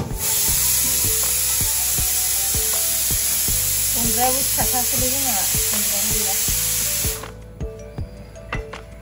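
Machete chopping fish on a wooden block, a run of sharp knocks every fraction of a second, under a loud steady hiss that starts suddenly and cuts off about seven seconds in.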